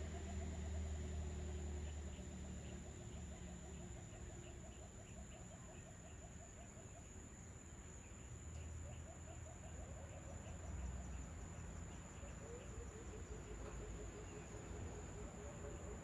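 Dusk outdoor ambience: an animal gives long runs of rapid, low pulsing calls, several a second, over a faint low rumble.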